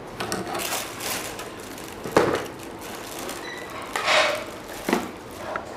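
Tissue paper rustling and crinkling as it is handled and pulled from a small cardboard box, with a sharp knock about two seconds in and louder rustles near the end.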